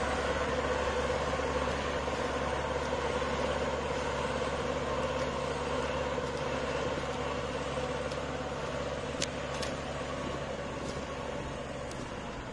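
MTZ 820.2 tractor's four-cylinder diesel engine running steadily as it pulls a disc harrow through the field, fading a little as it moves away.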